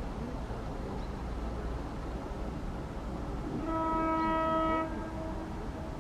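ChS4T electric locomotive sounding its horn once, a single blast of about a second, about four seconds in. It is a warning to a person crossing the track ahead of it. Under it runs a faint steady low rumble.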